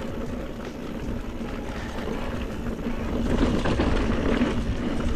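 Mountain bike rolling fast along dirt singletrack: tyre noise and small knocks and rattles from the bike, with wind buffeting the microphone, getting louder about three seconds in.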